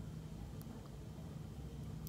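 Quiet room tone: a faint, steady low hum, with one faint tick about half a second in.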